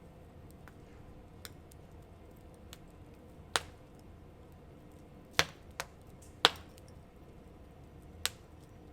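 Wood fire crackling: sharp pops and snaps at irregular intervals, five of them clearly louder than the rest, over a low steady background.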